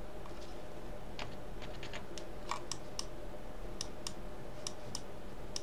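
Computer mouse scroll-wheel ticks and button clicks: a scattering of sharp clicks, some in quick runs, over a faint steady hum.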